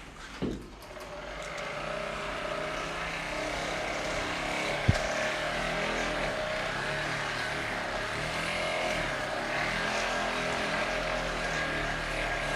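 A small motor whirring steadily, growing louder over the first couple of seconds, with one sharp click about five seconds in.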